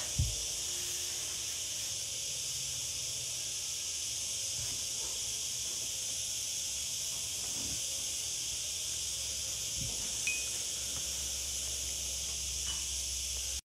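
Steady high-pitched hiss, with a soft low thump just after the start and another about ten seconds in. The hiss cuts off suddenly near the end.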